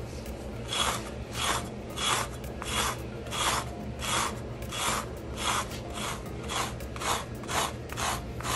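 Uproot Clean pet-hair remover raked across a rough outdoor rug in quick rasping strokes, about two or three a second, starting about a second in. It is scraping embedded dog fur out of the rug's coarse fibers.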